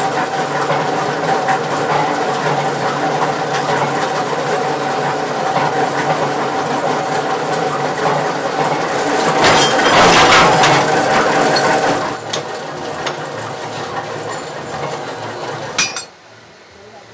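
Workshop machinery with a metal press running, a steady motor hum under it, and clinks of steel dies and parts being handled. The machine noise swells about ten seconds in, eases a little after that and drops away sharply near the end.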